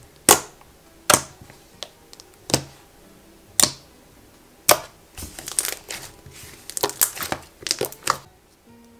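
Thick, stretchy school-glue slime with snow powder being poked and folded by hand: sharp bubble pops about once a second, then a quicker run of crackling pops and squishes as it is stretched and folded near the end.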